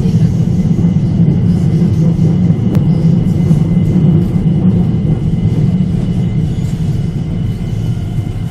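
Dalian Metro Line 1 train running between stations, heard from inside the car: a steady low rumble with a faint, steady high whine above it, and a single sharp click about three seconds in.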